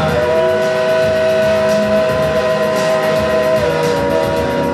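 Live band music: a long sustained keyboard chord held steady, shifting to a lower chord about three and a half seconds in.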